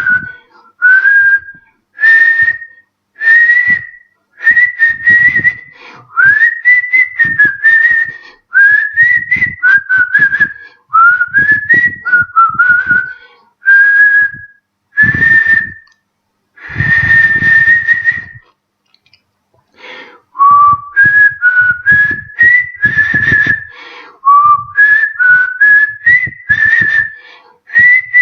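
A man whistling a melody through pursed lips in short phrases of sliding notes, with a breathy rush under the tone. There is one longer held note and then a pause of about two seconds before he carries on.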